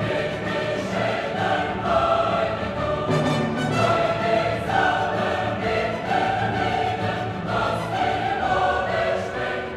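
Choir singing with orchestral accompaniment, long held notes changing pitch every second or so.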